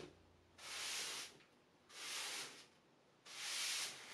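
Broom bristles sweeping across a concrete floor through broken Play-Doh chunks, three brushing strokes about a second and a quarter apart.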